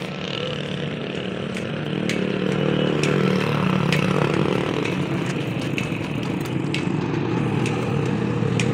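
A motor vehicle engine running steadily nearby, growing louder about two seconds in, with scattered sharp clinks of loose metal differential parts being handled.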